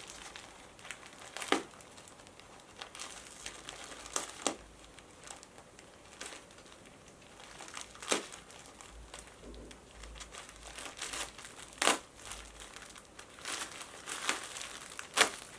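Packaging crinkling and crackling as a parcel is handled and unwrapped, with a handful of louder crunches at irregular intervals.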